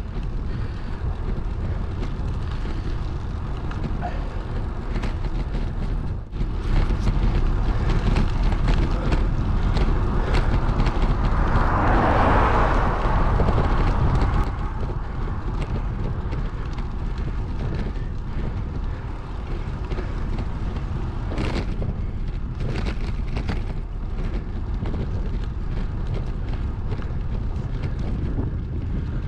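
Wind rushing over an action camera's microphone while cycling along a road, a steady low rumble. It grows louder for several seconds in the middle, as a passing vehicle's noise swells and fades.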